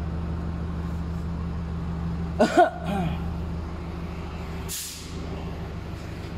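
A vehicle engine idling steadily, with a short sharp hiss of air about five seconds in.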